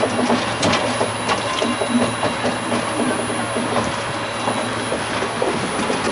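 Vekoma/Caripro monorail car running along its track: a steady rolling rumble with many small irregular clicks and rattles and a low hum that comes and goes.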